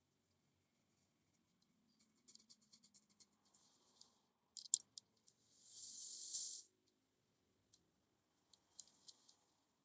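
Faint small clicks and rattles from hand work, with a sharper click about halfway through and a hiss lasting about a second just after it.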